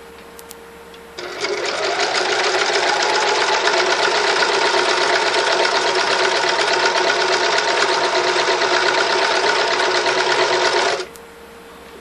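Sewing machine stitching a straight row through a single layer of fabric, running with a fast, even rhythm. It starts about a second in, comes up to a steady speed, and stops about a second before the end.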